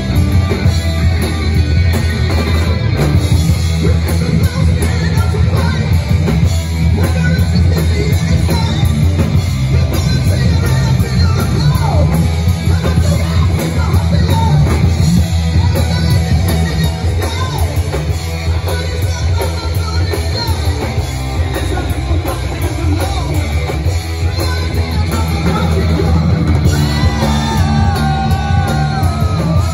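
Live rock band playing loud: electric guitars, bass and a drum kit, with a singer on the microphone.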